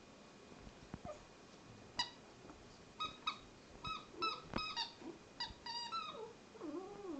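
A dog chewing a rubber squeaky toy, the squeaker giving about ten short, high squeaks in quick irregular succession. Lower, wavering whines or grumbles from the dog come in near the end.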